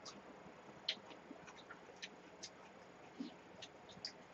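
Faint, scattered small clicks of people eating at a table, about a dozen irregular ticks over four seconds with no talk.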